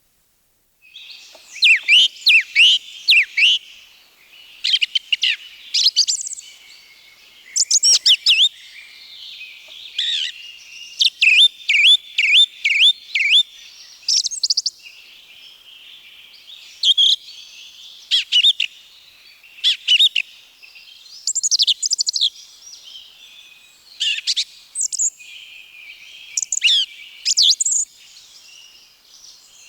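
Song thrush singing: loud, sharp phrases of a few notes, each phrase repeated several times in a row before the bird switches to a new one, with short pauses between the groups.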